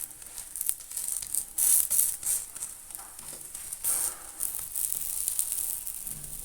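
Batter paratha frying in oil on a flat iron griddle, sizzling and crackling, with a few louder crackles about two seconds in.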